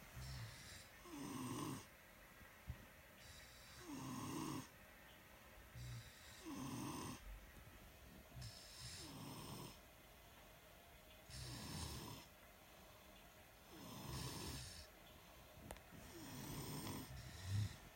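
Two sleepers snoring, a rasping snore-and-breath cycle repeating about every two and a half seconds.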